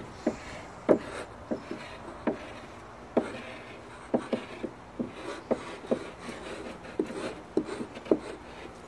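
Chalk writing on wooden boards: short, irregular taps and scratches as the strokes are drawn.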